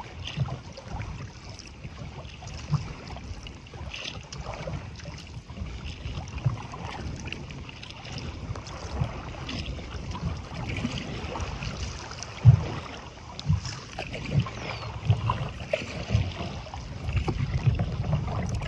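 Wind buffeting the microphone over choppy waves splashing against a touring kayak's bow. In the second half come sharper low thumps of water slapping the hull, roughly one a second, the loudest about two-thirds of the way through.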